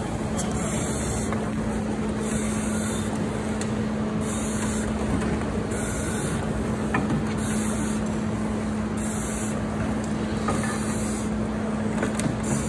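Firefighter breathing on a Scott SCBA: a hiss of air through the mask regulator about every one and a half seconds, over a steady low hum.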